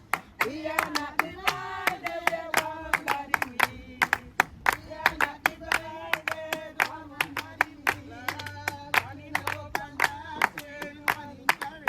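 People singing together with steady rhythmic hand-clapping, about three claps a second, keeping the beat of a church chorus.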